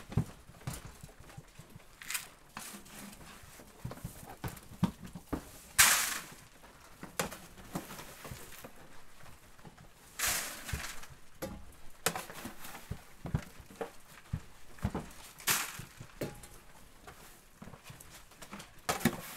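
Sheep-feeding chores in a barn: scattered knocks and clicks from a plastic feed bucket and footsteps on straw, with three short rushing hisses of feed going into or out of the bucket, the loudest about six seconds in.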